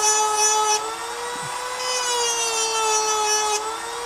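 Dremel rotary tool running at a steady high whine while its bit grinds into the metal handle of a Swiss Army knife. The grinding scratches out in two passes: one stops about a second in, and the other starts about two seconds in and stops near the end. Each pass deepens the dimples of a rock pattern.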